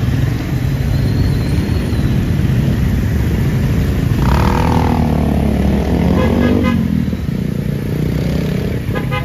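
Street traffic with motorcycle engines running close by, a steady low rumble. About four seconds in, a pitched tone slides downward for a second or so, followed by a brief run of quick repeated pulses.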